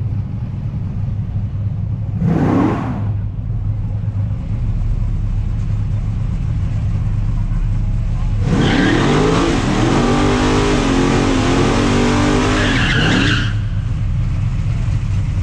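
A 700 hp naturally aspirated Pontiac Beaumont doing a burnout. About eight seconds in, its engine revs hard and wavers in pitch for about five seconds over the hiss of spinning tyres, then drops back. There is a brief rev about two seconds in, and a steady low engine idle underneath.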